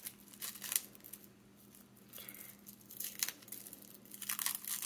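Clear plastic shrink wrap being peeled and crinkled off a bottle of ink, in crackling bursts with a quieter pause in the middle.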